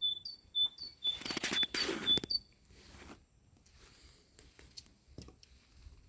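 Great tit singing its repeated two-note song, a high note then a lower one, stopping about two and a half seconds in. A rustling noise sounds alongside it from about a second in.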